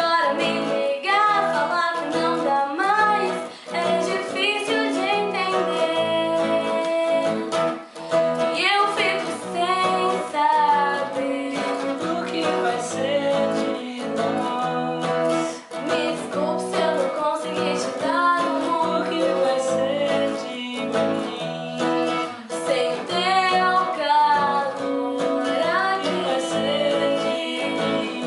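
A woman singing a pop ballad over strummed acoustic guitar.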